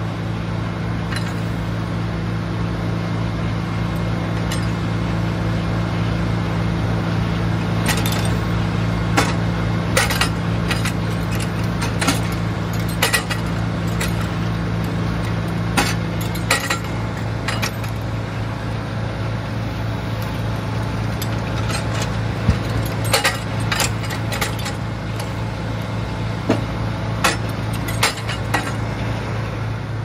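A sawmill's engine runs steadily with a constant hum. Many short metallic clinks and knocks come irregularly over it from about a quarter of the way in until near the end.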